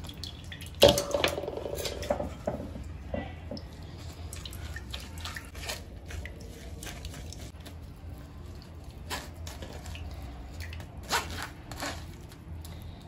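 Blended muskmelon-seed liquid dripping through a plastic mesh strainer into a glass tumbler, with scattered small clicks and taps of a spoon working the pulp in the strainer. A sharper knock with brief ringing comes about a second in.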